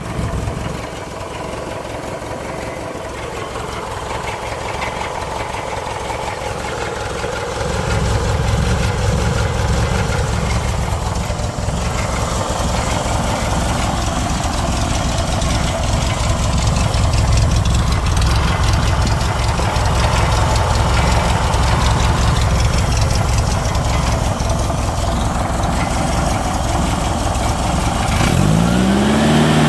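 1969 Volkswagen Baja Bug's air-cooled flat-four engine running with a rattle, getting louder about eight seconds in.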